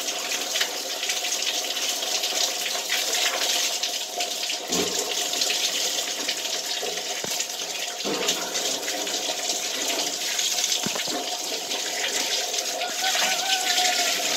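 Shower water running steadily, the spray splashing over hair and head as shampoo is rinsed out.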